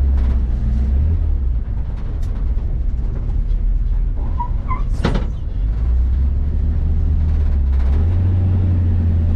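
1939 Ford truck's flathead V8, fitted with Offenhauser heads and twin single-barrel carbs, running at low speed and heard from inside the cab as a deep steady rumble. Its pitch drops about a second in and rises again in two steps later on. A brief sharp noise cuts in about five seconds in.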